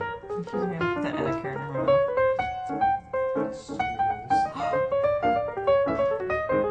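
Background piano music: a quick, lively melody of short notes.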